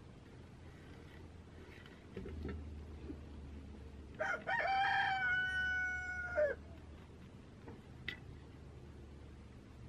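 A rooster crowing once, a single call of about two seconds that holds its pitch and then drops at the end. A faint low hum runs underneath from about two seconds in.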